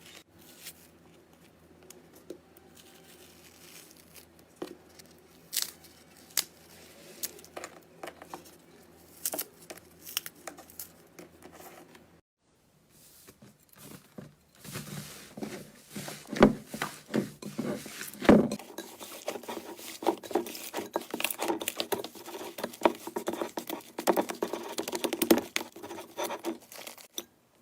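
Hands squeezing and poking slime, making a run of small sticky clicks and pops. After a brief gap about 12 seconds in, the clicking gets denser and louder.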